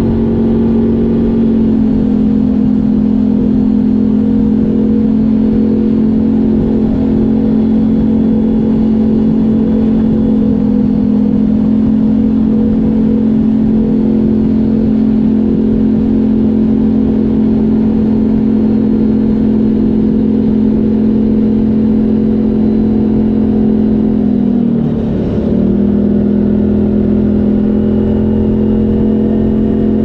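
CFMoto CForce 1000 ATV's V-twin engine running through an Akrapovic exhaust, held at steady revs. The revs dip briefly about 25 seconds in and pick straight back up.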